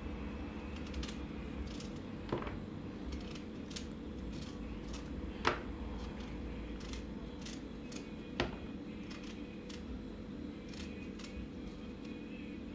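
Knife cutting up a raw turnip: irregular short cutting clicks and taps, a few of them louder and spaced one to three seconds apart.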